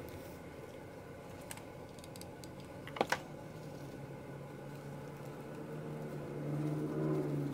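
Hands handling satin ribbon and tulle on a paper-covered table: scattered light clicks and rustles, with two sharp clicks close together about three seconds in. A low steady hum builds through the second half.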